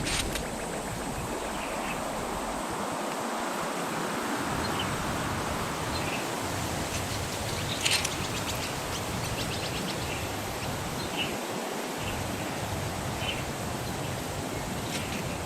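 Steady outdoor background hiss with faint, scattered short bird chirps and one brief click about eight seconds in.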